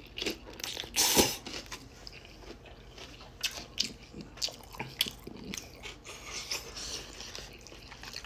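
Close-miked chewing and crunching of food, with a loud crunch about a second in and many smaller crackly bites and chews after it.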